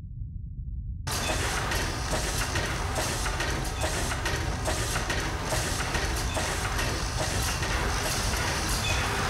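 A low rumble, joined about a second in by a sudden, dense, steady rushing noise with faint irregular clicks running through it, like the inside of a moving train.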